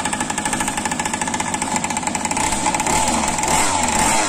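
Small gasoline two-stroke engine of an RC speedboat (Zenoah G2D) running out of the water, with fast, even firing. A little over two seconds in it gets louder and rougher.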